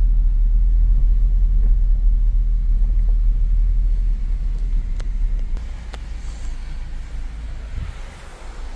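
Low rumble of a car driving on a dirt and gravel road, heard from inside the cabin; it drops in level a little past halfway, with a couple of light clicks.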